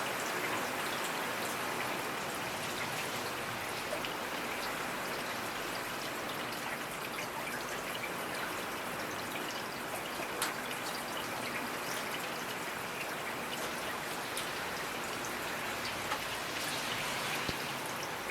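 Steady rainfall: an even hiss of rain with scattered individual drops ticking on surfaces, one sharper drop about ten seconds in.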